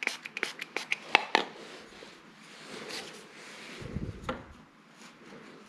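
Hands working with wooden baseboard trim and a spray of super glue accelerator: a quick run of light clicks and knocks, a soft hiss about three seconds in, then a dull thump a second later.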